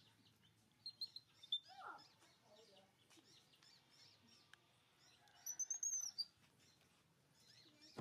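A baby monkey's faint, high-pitched squeaking calls for its mother: a short falling squeal about two seconds in, and a quick run of shrill chirps a little after five seconds in, the loudest part.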